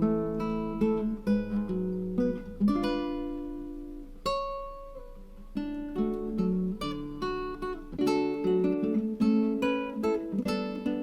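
Background music on acoustic guitar: plucked and strummed chords that thin out to a few ringing single notes in the middle, then pick up again.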